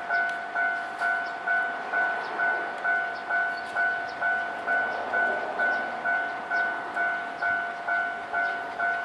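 Japanese railway level-crossing warning bell ringing: an electronic two-tone ding repeating steadily, about two strikes a second, each dying away quickly, while the crossing stays closed for trains.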